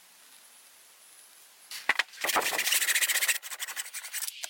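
A hand tool scraping rapidly across the wooden handle end and wedge set in an axe head's eye, trimming them down. After a single click, the scraping starts about halfway through and breaks into quick separate strokes near the end.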